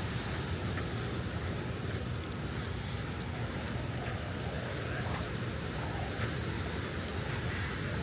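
Steady outdoor ambience of road traffic mixed with wind and surf, with no single sound standing out.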